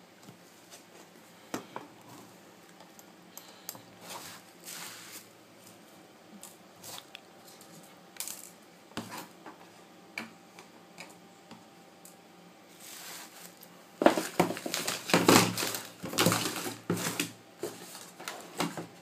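Handling noise from a camera tripod being readjusted: scattered light clicks and knocks, then a louder run of clattering and rustling for a few seconds near the end.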